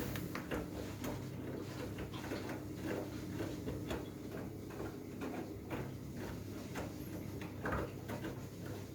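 Front-loading washing machine running a wash cycle loaded with blankets: a steady motor hum with a stream of irregular light clicks and knocks.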